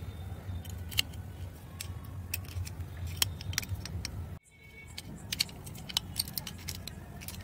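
A stainless-steel padlock and its key being handled: scattered sharp metallic clicks and jingles as the key rattles in the lock and the shackle clinks, over a steady low background hum that briefly drops out a little past halfway.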